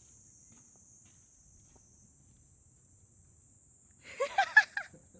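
Faint, steady high-pitched chirring of crickets. About four seconds in comes a short, louder sound whose pitch rises and falls.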